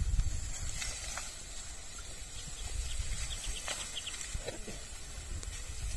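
Wind rumbling on the microphone in an open field, with a run of faint ticks in the middle and a short falling call about four and a half seconds in.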